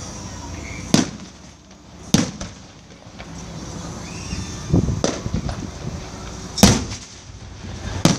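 Aerial fireworks shells bursting with sharp booms every second or two, the loudest about two-thirds of the way in. A quick cluster of smaller bangs comes midway.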